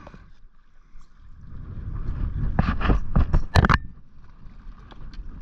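Low rumble of wind and water around a small fishing boat, with a quick cluster of sharp knocks and splashes a little past the middle as a hooked sooty grunter is brought to the net.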